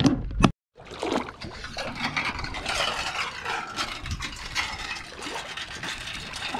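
Shallow water swishing and trickling as a person wades and moves a crab scoop-net pole through it, a steady splashy noise. A short knock about half a second in, followed by a brief gap.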